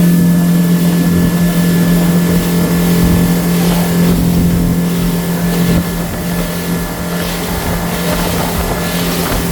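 Motorboat engine running steadily under way, with a loud rush of wind and water.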